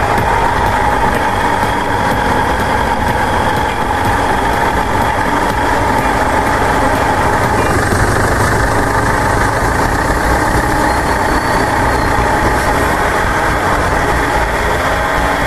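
2010 Ford Ranger's driveshaft spinning, heard from underneath the truck with the drivetrain running: a steady growling noise. It is the driveline fault first reported as a possible wheel bearing noise.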